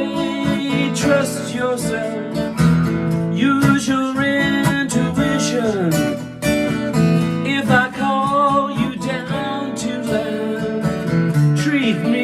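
Music from an original song: an acoustic guitar strummed in a steady rhythm, with a melody line bending in pitch above it.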